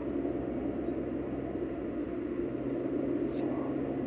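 Steady drone of a car driving along a road, engine and tyre noise heard from inside the cabin.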